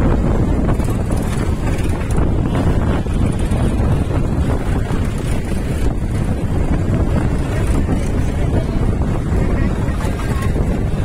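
Diesel tractor engines running as tractors pull loaded trailers past at close range, with wind rumbling on the microphone. The noise is steady throughout.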